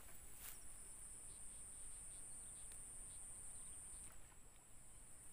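Steady high-pitched drone of insects, dipping briefly about four seconds in.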